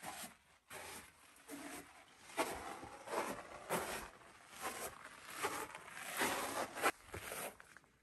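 Footsteps crunching and scuffing on gravelly desert sand, a step about every 0.7 seconds at walking pace.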